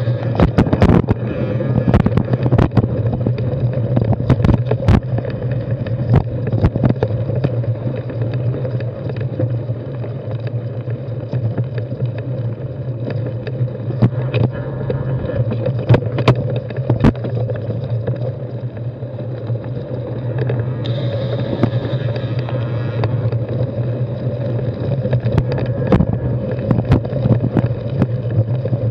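Carbon 6Fattie mountain bike rolling over a rocky dirt singletrack, heard from a handlebar-mounted camera. The tyres and frame make a steady rumble and rattle, with frequent sharp knocks as the wheels hit stones.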